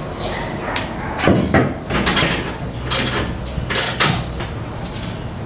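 Hands working at a pickup's rear bumper and its parking-sensor wiring: a series of short knocks, clacks and scrapes, about five of them, over a steady low background.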